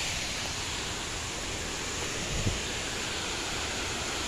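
Fast water rushing along a narrow concrete irrigation channel: a steady, even hiss, with one brief low bump about halfway through.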